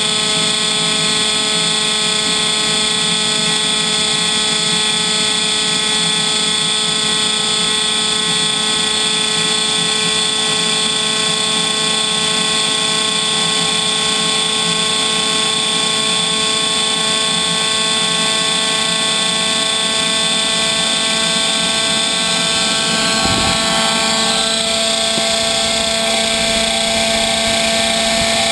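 Homemade turbocharger-based gas turbine running steadily under test, driving a nylon reduction gear, giving a loud whine of several steady tones over a rushing hiss. There is a brief low thud about 23 seconds in, after which the whine shifts slightly in tone.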